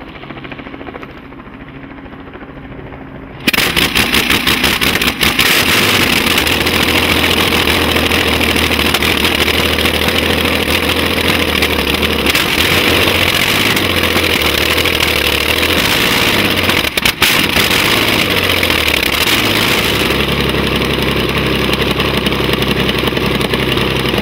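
Junkers L5 23-litre inline-six aircraft engine firing up: after a few seconds of a quieter hum it catches abruptly about three and a half seconds in, then runs loud through its six open exhaust pipes, its speed shifting up and down, with a brief dip about seventeen seconds in.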